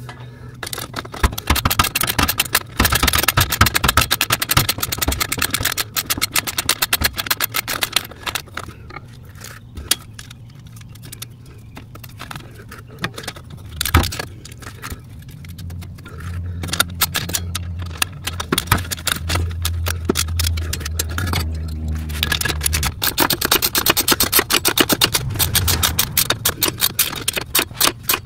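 Socket ratchet clicking in quick runs as the exhaust flange bolts are tightened, with a pause in the middle. A low steady hum runs for several seconds just after the midpoint.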